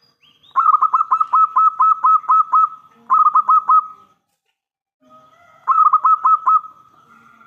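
Zebra dove (perkutut) cooing its staccato song: a run of about ten quick notes, a shorter run of four, then another short run that runs into a long, steady held note near the end.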